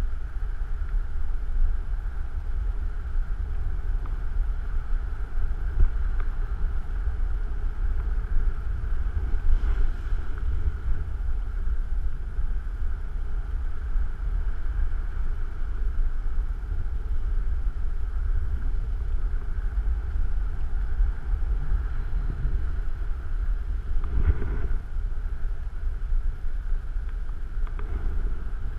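Steady rush of wind over a body-mounted camera's microphone while gliding under an open ram-air parachute canopy, with a brief louder rush near the end.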